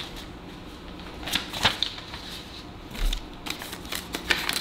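Hands handling paper and a cardboard shipping box: scattered rustles and light taps as a paper item is pulled out of the box, with a soft low bump about three seconds in.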